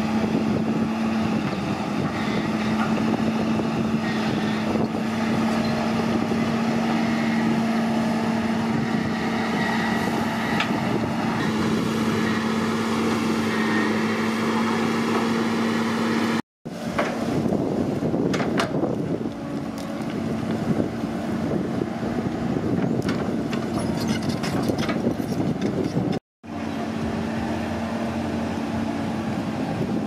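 Caterpillar crawler excavator's diesel engine running with a steady drone, cut off twice for a moment; in the middle stretch the drone is weaker and scattered cracks and knocks come through.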